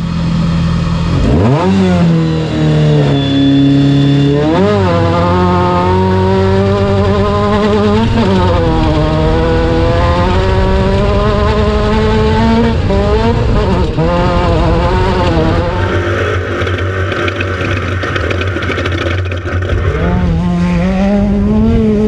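Class 10 off-road race car's engine, heard from the cockpit, running hard and revving up and dropping back again and again as the car drives the dirt course.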